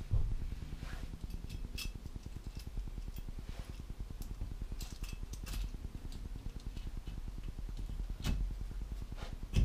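A few scattered light metal clinks and taps over a low steady hum: expanding anchor bolts being slotted into holes drilled in a concrete floor.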